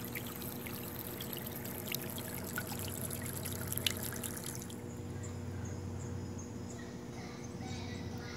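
Remote-controlled duck decoy's twin propellers churning and spattering pool water over a steady electric-motor hum. The splashing hiss is strongest for the first few seconds, then eases off, leaving mostly the hum and light lapping.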